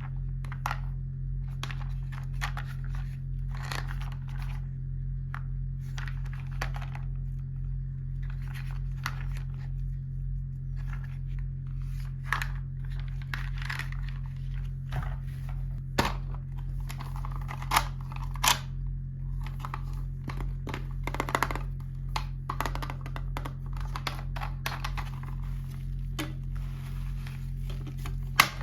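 Small toy packaging being handled and opened: scattered clicks, taps and crinkles of plastic and paper, with a few louder sharp snaps in the second half, over a steady low hum.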